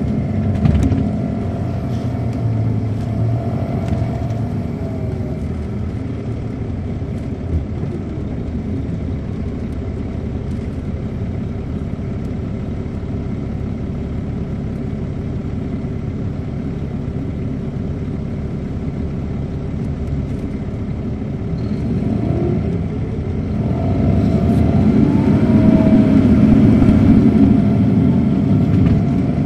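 Cabin sound of a 2007 MCI D4500CL coach with a Caterpillar C13 diesel: the engine runs steadily, then a little after two-thirds of the way through it rises in pitch and grows louder as the bus accelerates.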